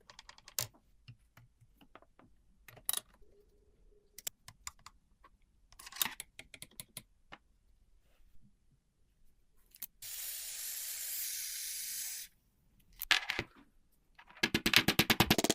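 Scattered light clicks and metallic taps of a typewriter's mechanism being handled and worked. About ten seconds in, a steady spray hiss runs for a little over two seconds. Near the end comes a fast rattling run of clicks.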